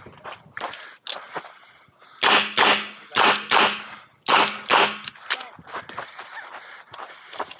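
Smith & Wesson 929 9mm revolver fired in a stage string: six loud shots in three quick pairs, a few tenths of a second apart within each pair, about a second between pairs. Fainter pops and clanks come between them.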